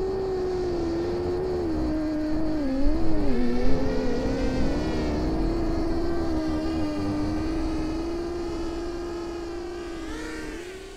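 Diatone Roma L5 5-inch FPV quadcopter in flight, its brushless motors and propellers giving a steady whine. The pitch dips and wobbles a few seconds in, then holds steady and fades out near the end.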